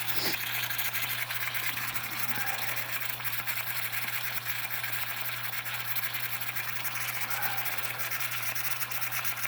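Empire B42 twin-boiler toy steam engine under steam, hissing and sputtering steadily over a low hum. The engine is stuck tight on its compression stroke, long unused, and is not yet turning over.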